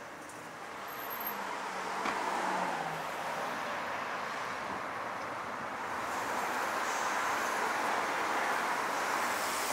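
Street traffic: cars driving past on a city road, the tyre and engine noise swelling as one goes by about two seconds in and again over the second half.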